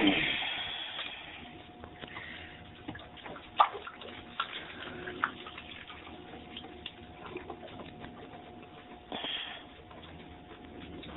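Water sloshing and scattered clicks and knocks as debris and barnacle growth are dug out by hand from a yacht air conditioner's seawater strainer housing, with a loud splash at the start and a faint steady tone underneath.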